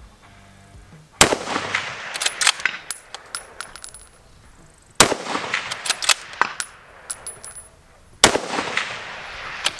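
Three rifle shots from a 6.5 Creedmoor bolt-action rifle with a muzzle brake, spaced about three and a half seconds apart, each followed by a rolling echo. Sharp metallic clicks of the bolt being cycled follow each shot.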